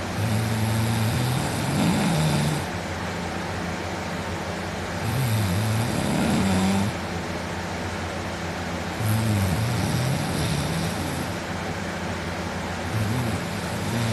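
A man snoring loudly in deep sleep: four long, rasping snores, one about every four seconds, over a steady background hum.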